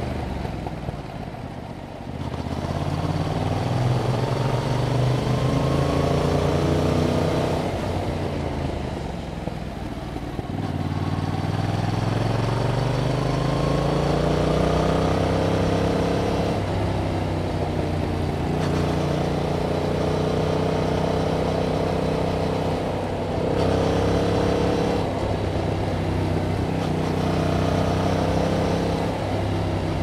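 2021 Yamaha MT-07's 689 cc parallel-twin engine running through its stock exhaust while riding. The revs climb, fall away, and climb again for several seconds, then hold fairly steady with a few short dips near the end.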